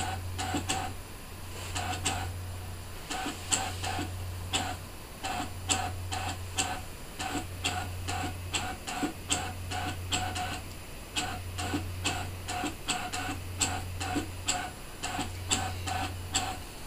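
Brother ScanNCut DX cutting machine drawing with a foiling tool: its motor hums in runs of about a second or so, with short pauses between, under fast irregular clicking from the carriage and tool.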